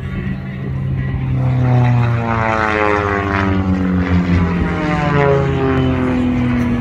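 Propeller engines of smoke-trailing aerobatic airplanes running at full power in a vertical climb, loud, their note sliding steadily down in pitch from about a second and a half in as the planes pull away.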